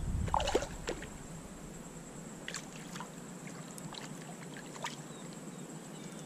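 Faint trickle of shallow creek water, with a few brief clicks and light splashes, most of them in the first second.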